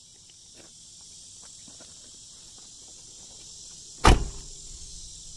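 A 1996 Ford F-150 pickup's door shut with a single loud slam about four seconds in, after a few faint clicks and rustles.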